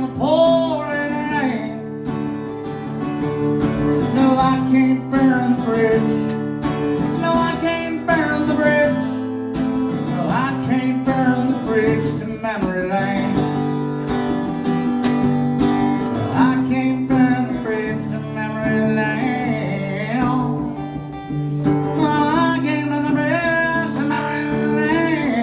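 Live country song: a singer's held, wavering notes over strummed acoustic guitar.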